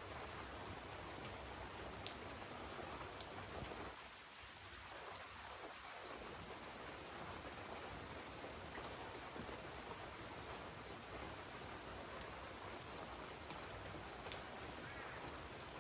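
Steady light rain falling, with an occasional louder single drop ticking.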